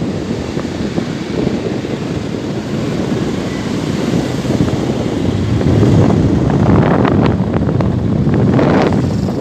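Wind buffeting the microphone of a moving two-wheeler, over a steady rumble of its running and the road. The buffeting grows rougher about two-thirds of the way through.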